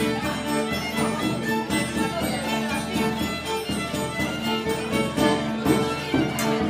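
Instrumental music with held notes over a steady pulse.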